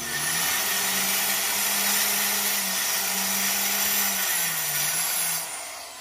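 Handheld electric saw running and cutting porcelain tile: a steady hiss of cutting over the motor's hum. The motor winds down about four seconds in and stops near the end.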